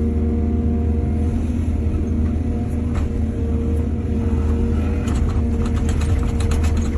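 Diesel excavator engine running steadily, with a burst of rapid clattering knocks over the last two seconds or so.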